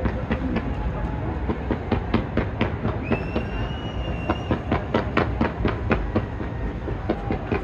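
Fireworks going off in rapid succession, a continuous barrage of bangs several a second, with a high whistle lasting about a second and a half near the middle.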